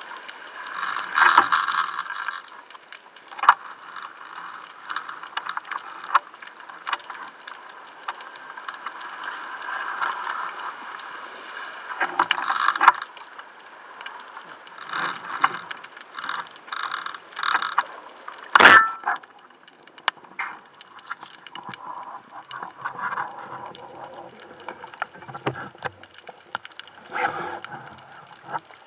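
Underwater sound picked up through the camera housing on a speargun: scattered clicks, knocks and scraping bursts from handling and movement. About two-thirds of the way through there is one sharp, loud crack.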